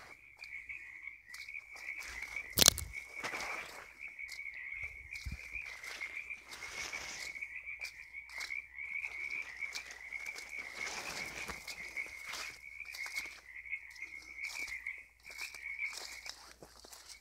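A dense chorus of frogs calling from all directions, merging into a continuous trilling drone. One sharp crack about two and a half seconds in stands out above the chorus.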